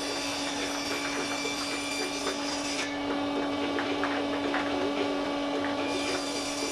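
Table saw running steadily with a constant hum as 3/4-inch plywood is fed through the blade and ripped.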